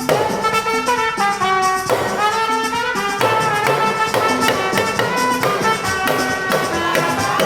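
Upbeat music with brass horns over a steady beat.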